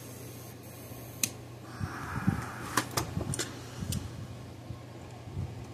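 A few sharp, irregular clicks and small knocks from handling the fence charger's wiring and plastic case on the workbench, over a steady low hum.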